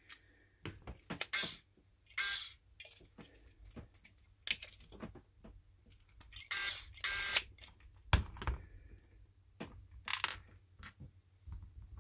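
A small cordless electric screwdriver driving screws into a plastic tool housing in several short bursts, each lasting under a second. Clicks and knocks come between the bursts as the tools are handled.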